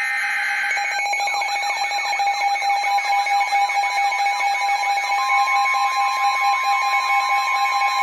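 Emergency alert tones: a short screeching data burst in the first second, then several steady electronic tones layered with fast, repeating siren-like sweeps. About five seconds in, a steady tone near 1 kHz joins, the weather radio's 1050 Hz alert tone.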